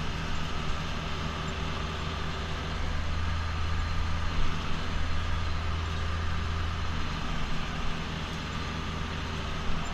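Ursus tractor's diesel engine running steadily while driving and pulling a trailer, heard from inside the cab as a low, even drone; the drone eases a little about seven seconds in.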